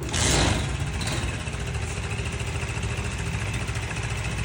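A 110 cc motorcycle engine runs with a louder surge in the first half second, then settles into a steady idle.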